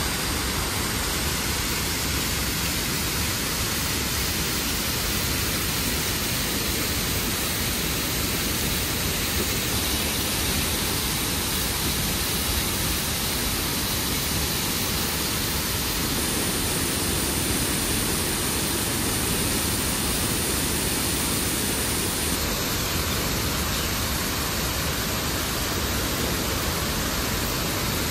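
Water rushing out through an opened dam gate: a steady, unbroken rush of heavy flow.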